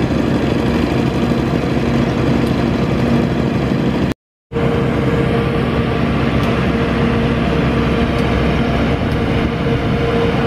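Engine of a Maxxi WD3100 tracked rotary tiller running steadily as the machine drives. The sound cuts out briefly about four seconds in, and after that a steady whine is heard over the engine.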